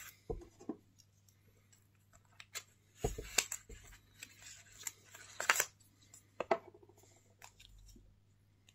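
Small utility knife cutting into packaging at close range: a cluster of sharp clicks and scrapes starting about three seconds in and ending about three seconds later, with quiet before and after.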